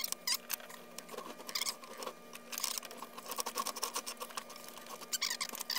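Steel strap being rolled through a homemade vise-mounted ring roller made from timing-belt tensioner pulleys, giving irregular light metal-on-metal clicks and ticks, with a faint steady hum beneath.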